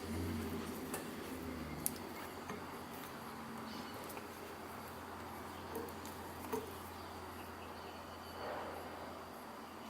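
A faint, steady low buzz that is louder for about the first two seconds, with a few light clicks.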